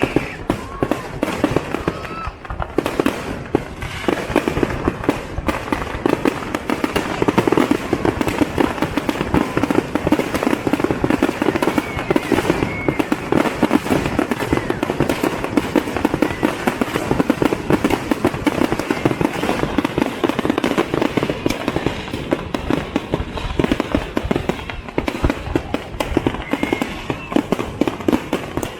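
Fireworks display: an unbroken barrage of firework bursts, many closely packed bangs every second.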